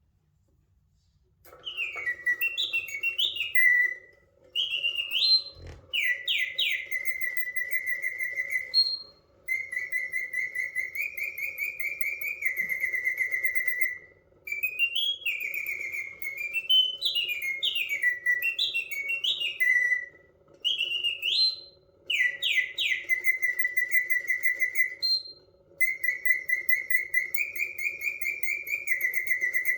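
Karl Griesbaum mechanical singing bird in a cage: its clockwork-driven bellows and slide whistle play repeated bird-song phrases of quick rising and falling chirps and trills, with short pauses between phrases. A steady whirr of the movement runs underneath, and the song starts about a second and a half in.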